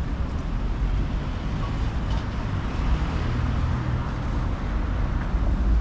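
Street traffic: cars passing on a busy city boulevard, a steady low rumble of engines and tyres that swells twice.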